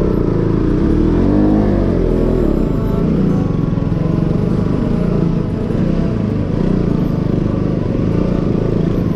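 Motorcycle engine running while being ridden, its pitch rising and then falling with the throttle about a second and a half in.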